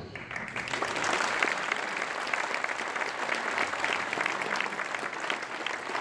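Audience in a hall applauding steadily.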